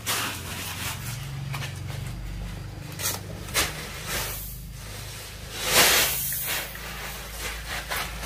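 Woven plastic sacks of rice rustling as they are handled and emptied onto the concrete drying yard, with a few short rustles and a louder rushing rustle about six seconds in.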